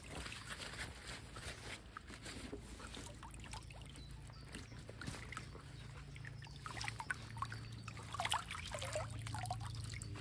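Lake water sloshing, splashing and trickling as a carp is released from a wet landing net at the water's edge, with scattered drips and small splashes that get busier toward the end.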